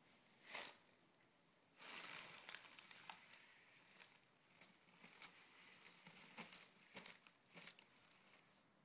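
Faint, irregular rustling and crinkling with scattered soft clicks, like something being handled.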